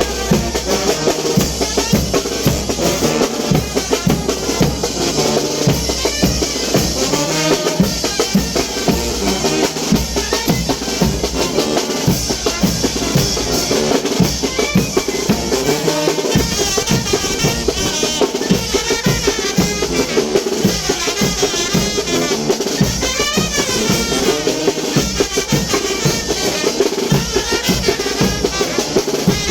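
Brass band playing chinelo dance music: horns carry the tune over a steady beat of bass drum and snare drum.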